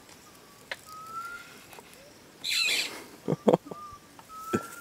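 Spotted hyena cub snuffling right at the camera, then two sharp knocks as it bumps the camera with its nose. A thin whistled call that rises slightly sounds twice, about a second in and near the end.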